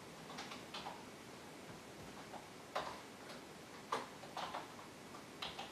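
Typing on a computer keyboard: light, irregular keystrokes with short pauses between them.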